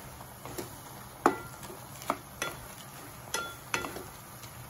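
Wooden spatula stirring shrimp in a frying pan, knocking against the pan in a series of sharp taps, the loudest about a second in. The buttery sauce sizzles steadily underneath.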